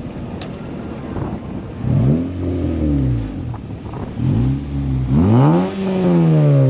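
A car engine revved three times, its note climbing and dropping back with each throttle blip; the last rev is the longest and highest.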